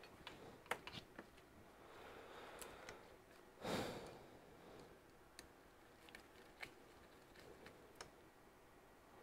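Faint small clicks and taps of a metal pick working at the plastic housing of a small laptop blower fan being taken apart. About three and a half seconds in comes one short, louder rush of noise.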